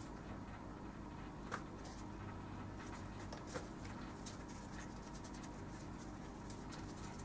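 Hand-stitching leather: needles and thread pulled through punched holes give faint scratchy rustles and light clicks, two sharper ones about one and a half and three and a half seconds in, over a steady low electrical hum.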